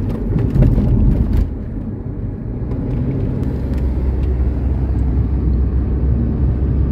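Steady low rumble of a car driving at speed, heard from inside the cabin: engine and tyre noise on the road. A few light clicks come in the first second and a half.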